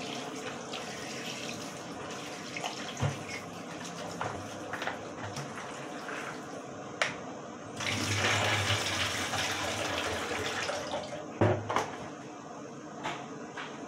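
Kitchen tap running onto pieces of cut beef cow's foot being rinsed and rubbed by hand in a plastic basin in the sink, with splashing and a few light knocks. About eight seconds in the water gets louder for about three seconds.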